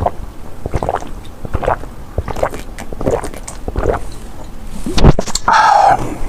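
Close-miked mouth chewing soft, saucy noodles rolled in liangpi, with wet squishing chews about once every 0.7 seconds. About five seconds in comes a louder wet knock, then a brief sustained wet sound.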